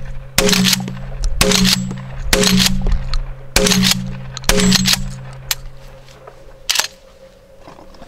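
Remington 870 Tactical pump shotgun fired five times in quick succession, about one shot a second, with the slide worked between shots. A ringing tone lingers after each shot, and a lone sharp click comes near the end.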